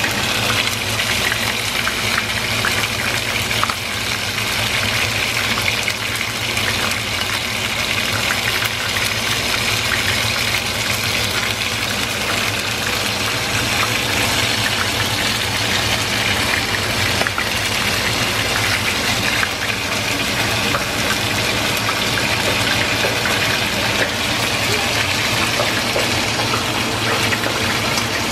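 Chicken pieces frying in a stainless steel sauté pan on an electric stove: a steady, loud sizzle with small crackles.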